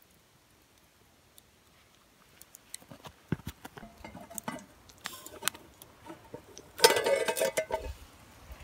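Metal camp cookware handled over coals: a few light clinks and knocks as the pans are shifted, then about seven seconds in a loud grating metal scrape with a ringing tone as the upturned pan serving as a lid is slid off the pot.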